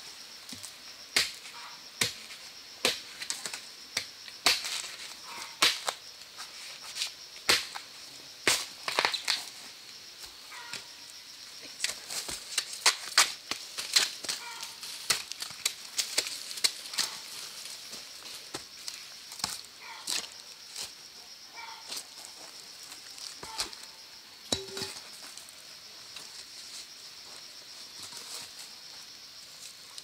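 Irregular sharp cracks and snaps, coming thickest midway, over a steady high insect drone.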